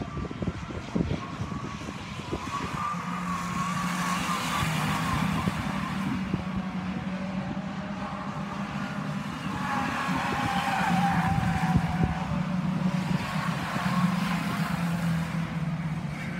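Stock car engines running as several cars lap the oval, the sound swelling and fading a few times as the cars pass.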